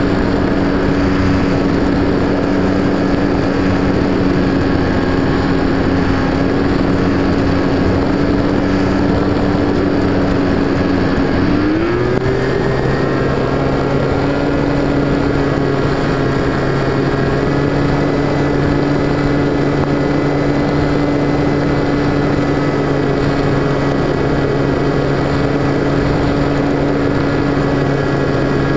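Electric motor and propeller of an FPV Raptor foam RC plane running at a steady drone, heard from the onboard camera with wind noise. About twelve seconds in the pitch shifts with a short upward glide, then holds steady again.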